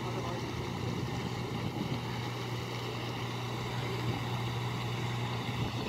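An engine running at a constant speed: an even, low drone with a haze of noise over it.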